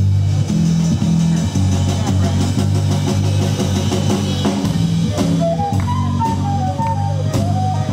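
Rockabilly band music with drum kit, bass and guitar playing a steady beat; a lead melody line comes in about five seconds in.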